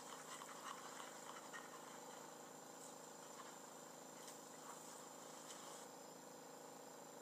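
Near silence: a faint steady hum and hiss, with a few soft ticks in the first couple of seconds.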